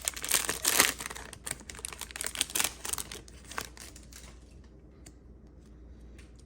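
Trading-card pack wrapper being torn open and crinkled, a dense crackling for about three seconds that thins to a few light rustles and then goes quiet.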